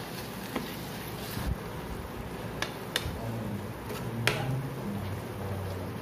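A metal spoon stirring a thick gravy in a nonstick kadai, knocking and scraping against the pan with about five sharp clicks over a steady hiss.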